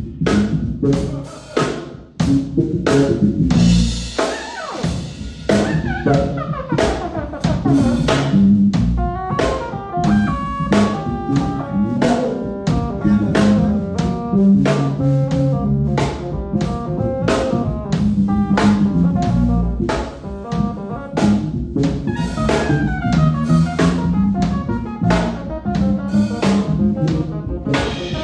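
A live band playing: a drum kit with kick and snare keeping a steady groove under bass and keyboards, with a couple of falling keyboard runs.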